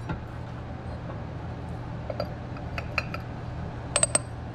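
Small metal transmission parts clinking as they are handled and set in place: a few light clicks, then a sharper cluster of two or three ringing clinks about four seconds in as a steel press cap is set on top of the stacked reaction gear. A steady low hum runs underneath.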